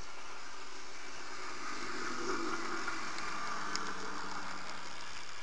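H0-scale model train, a pair of BN F45 locomotives pulling covered hoppers, passing close by: the electric motors' hum and the rumble of wheels on the rails swell to a peak in the middle and fade again, with a few sharp clicks, over a steady hiss.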